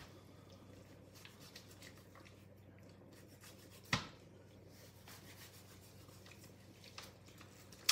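Cleaver cutting through raw turkey on a plastic cutting board, a faint scraping and rubbing of blade and meat, with a sharp knock of the blade on the board about four seconds in and a louder one at the end.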